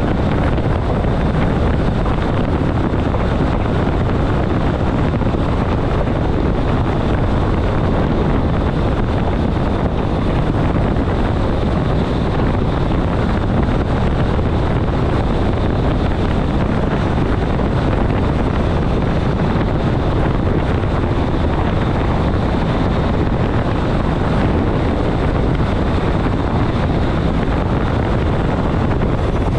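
ÖBB class 4024 Talent electric multiple unit running at about 140 km/h, heard from the driver's cab: steady rolling and wind noise with a faint, steady high tone.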